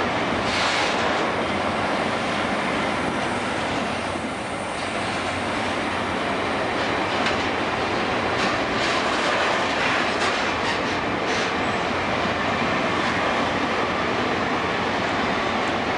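Empty freight hopper cars rolling past close by: a steady, loud noise of steel wheels on rail, with a run of sharp clicks in the middle.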